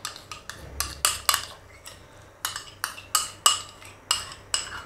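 Sharp, irregular clinks of a utensil against a dish, a dozen or so taps, as soaked gelatin is scraped out and dropped into warm milk.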